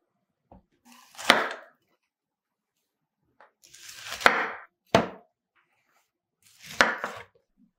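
Kitchen knife cutting through a raw cauliflower head on a wooden cutting board: a few separate crunching cuts, each ending in a knock of the blade on the board, with one sharp knock about five seconds in.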